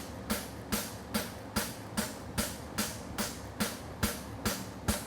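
Blacksmith's hammer striking a hot steel horseshoe blank on the anvil in a steady rhythm, about two and a half blows a second, while forging a side bone front shoe. A steady buzz from an evaporative cooling fan runs underneath.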